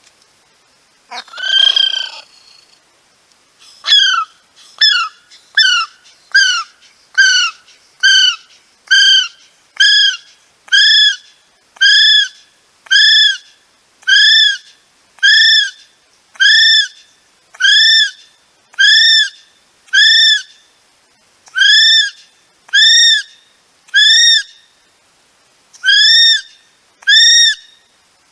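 Kiwi calling: a short rough call, then a long series of repeated high whistles, each rising then falling, at about one a second.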